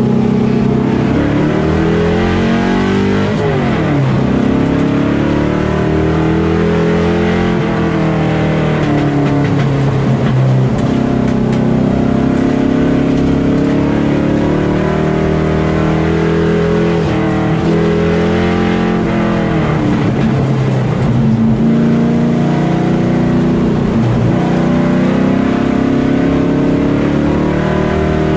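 Limited Late Model race car's engine at racing speed, heard from an onboard camera: its pitch drops as the driver lifts for each turn and climbs again on the straights, several times over.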